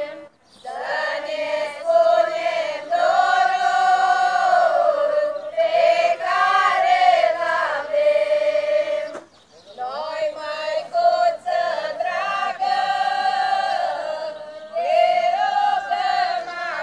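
Large women's choir singing a slow Romanian religious folk song without accompaniment, in long held phrases with short breaks for breath about half a second in and again about nine seconds in.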